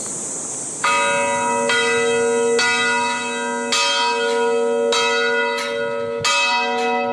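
Church bell ringing in a steady series of strikes, roughly one a second, starting about a second in. Each strike rings on with several steady tones, over a faint high insect hiss.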